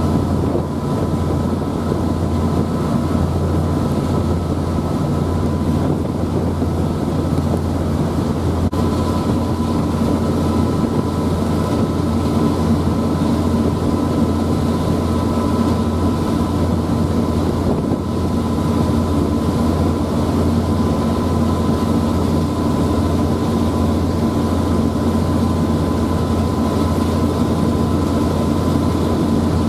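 Passenger ferry under way: its engines give a steady low drone with a couple of thin, steady higher tones over it, and a constant hiss of wind on the microphone.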